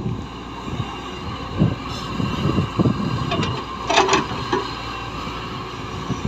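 Heavy earthmoving machinery running with a steady low engine rumble, broken by several dull thumps and one brief, sharper, higher sound about four seconds in.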